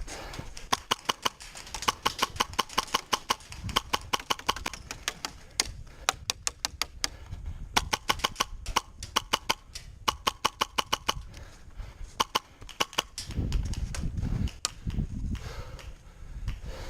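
Airsoft guns firing on full auto in repeated rapid bursts of sharp pops, several bursts of one to three seconds each. A low rumble comes in near the end.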